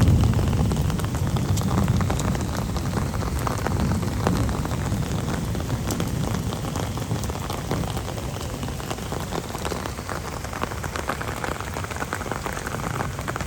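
Steady rain falling and hitting surfaces, dense with small drop ticks. A low rumble at the start dies away over the first few seconds.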